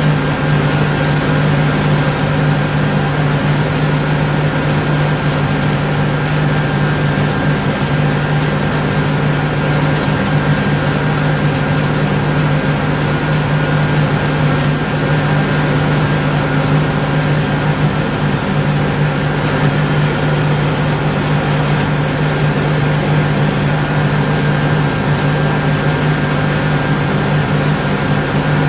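John Deere 9996 cotton picker and a John Deere tractor running steadily at close range: an even, loud diesel-and-fan drone with a constant high whine above it.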